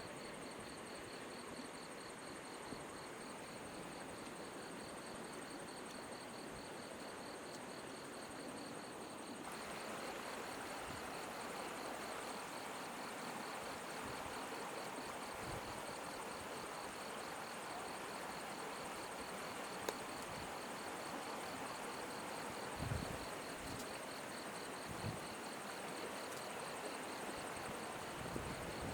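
Insects trilling steadily in a rapid, even pulse over a constant rushing hiss of flowing river water; the rushing gets a little louder about a third of the way in.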